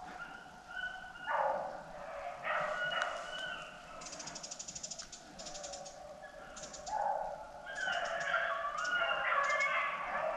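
Rabbit hounds baying on a running swamp rabbit's trail, long drawn-out bawls from several dogs, overlapping more toward the end. A brief fast high rattle sounds about four seconds in.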